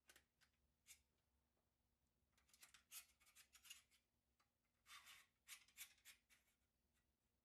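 Faint metal-on-metal clicks and scraping as a long metal rod is slid through the holes of a metal doll-crib side rail: a couple of single clicks, then two runs of quick rasping scrapes.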